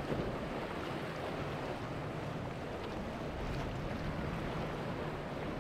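Steady wash of wind on the microphone and water, with a low hum of boat engines running underneath.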